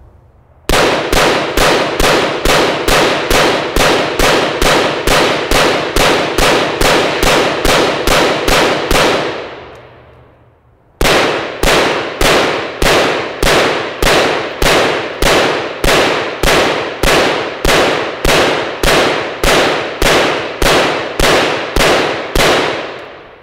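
Two long strings of rapid, evenly paced rifle shots from a 5.56 mm XM177E2-style carbine, about three shots a second. Each string trails off in echo, with a pause of about two seconds between them.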